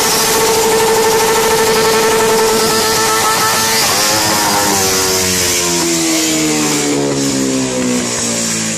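Sport motorcycle engine held at high, steady revs on a wheelie stand; about four seconds in the note breaks and the revs fall away slowly as the bike catches fire. A steady hiss lies under it.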